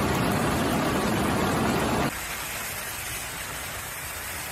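Floodwater rushing over a road in a loud, steady wash of noise. About two seconds in it cuts sharply to the quieter, steady rush of a swollen river.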